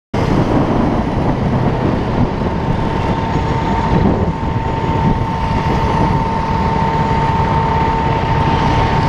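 KTM RC sport motorcycle riding in traffic, heard from the rider's helmet camera: engine, road and wind noise cut in just after the start and run steadily, with a thin steady whine through most of it.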